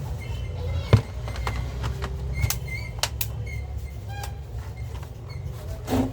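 Short sharp clicks and knocks of plastic laptop parts being handled and fitted, the loudest about a second in, over a steady low background rumble.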